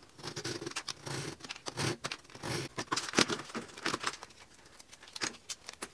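Snap-off paper-cutter blade scraping and cutting through a thin mica sheet: a run of short, irregular scratchy strokes and small clicks as the notches are cut and the pieces handled.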